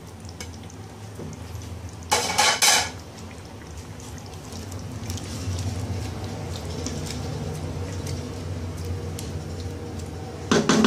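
A spatula stirring thick potato curry in a steel pot, scraping and knocking against the pot's side, with a short run of louder clatters about two seconds in and again near the end. A low steady hum runs underneath.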